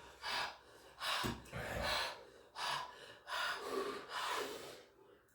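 Heavy, sharp breaths in and out through the mouth, about seven in a row: panting to cool a mouth burning from extremely spicy ramen.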